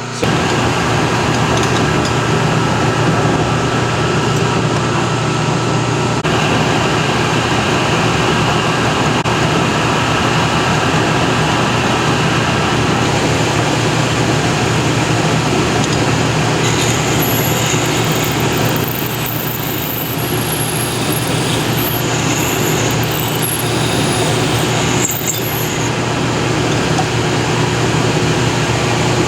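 A metalworking machine switches on abruptly and runs steadily with a low hum, with extra high-pitched noise between about 17 and 26 seconds in.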